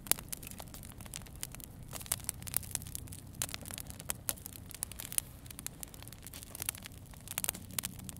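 Wood campfire crackling, with many irregular sharp pops and snaps over a faint low steady hum.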